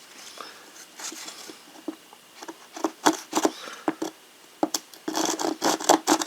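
Small folding saw blade of a stainless-steel multi-tool cutting a piece of scrap wood by hand: short, uneven rasping strokes that come faster and closer together from about five seconds in.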